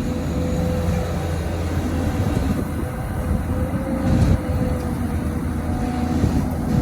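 Diesel engine and hydraulics of an XCMG XE215C crawler excavator running steadily at working revs, with a steady whine over the low engine sound.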